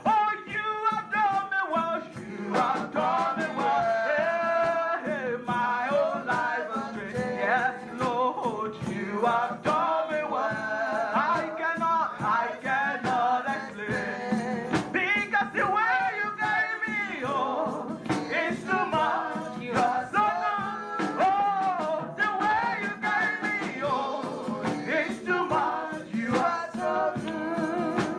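Gospel praise-and-worship singing with instrumental accompaniment, continuous throughout.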